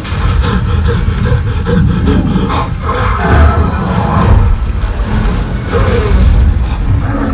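Floodwater rushing and churning in a loud, continuous low rumble with splashing.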